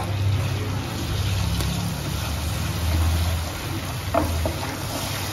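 A steady low rumble, with a few faint scrapes of a spatula stirring flour into melted butter in a non-stick pan, the start of a roux.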